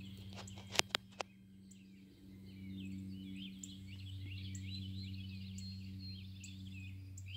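Steady low drone of the RC Cessna 182's motor and propeller in flight, growing louder a couple of seconds in as the plane comes closer, over birds chirping. Three sharp clicks about a second in.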